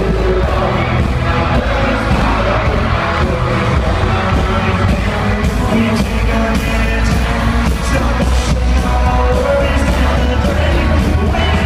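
Live country band and lead singer performing a song over a loud concert sound system, recorded from within the crowd with heavy bass. Crowd noise from the audience is mixed in.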